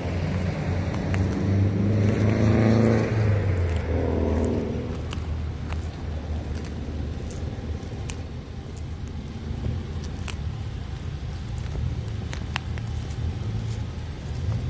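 Jaguar F-Pace SVR's supercharged 5.0-litre V8 running, swelling louder twice in the first five seconds, then settling into a steady idle.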